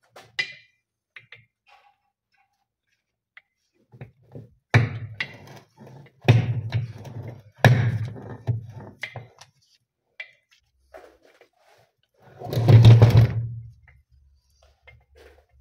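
Heavy metal thunks and clatter as a steel winch drum and its end housing are knocked and pushed together on a wooden workbench during reassembly of an electric off-road winch. A few sharp knocks come between about five and nine seconds in, then one longer, louder clunk near the end.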